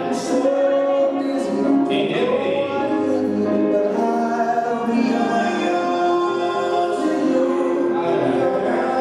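A song playing: sung melody with held notes over instrumental backing, with a few light cymbal-like hits.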